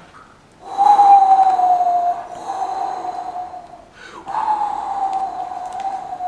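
A man's voice imitating the howl of a snowstorm wind, 'Hoooo woooo', in long high notes that slowly fall, two of them with a short break between.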